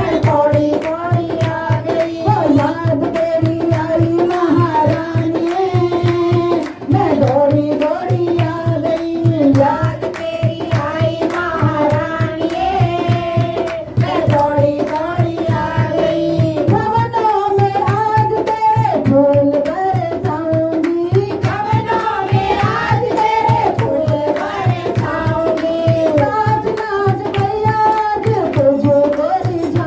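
Devotional bhajan music: a melodic line over a steady hand-drum beat.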